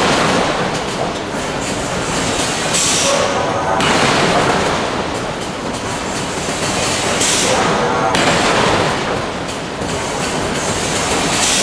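Hydraulic forging hammer working in a steel forge shop: loud, continuous mechanical noise, with a brighter hissing surge that comes back about every four seconds.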